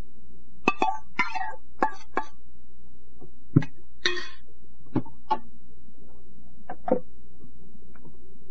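Light clicks and knocks of kitchen handling, about ten scattered through the first seven seconds, with a slightly longer scrape about four seconds in, over a steady low hum.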